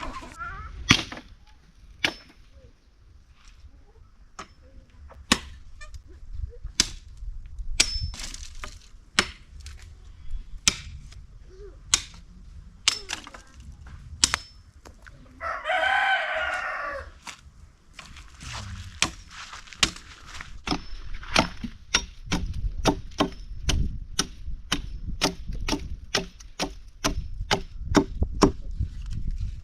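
Knife chopping on a wooden board, spaced knocks at first that quicken to about two or three a second in the last third, while onions are being cut. About halfway through a rooster crows once, a call of about two seconds.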